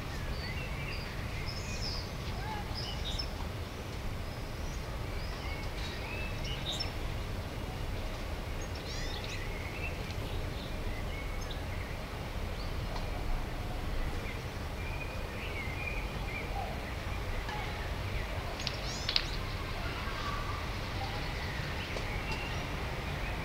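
Small birds chirping and calling on and off over a steady low background rumble, with one brief sharper call about 19 seconds in.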